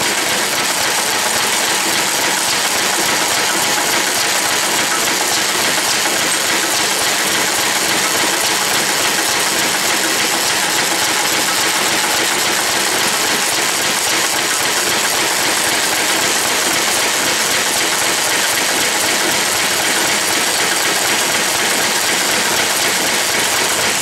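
International Harvester McCormick-Deering 1.5 hp Model M single-cylinder engine running steadily under its throttle governor, while the magneto is turned to advance and retard the spark and set the ignition timing.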